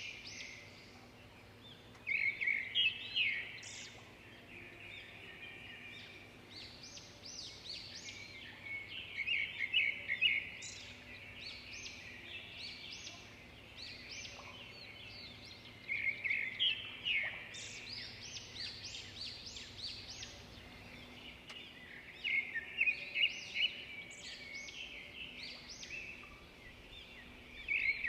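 Small birds chirping and twittering in quick bursts of high, rapid notes, a few seconds at a time, with quieter chirping in between.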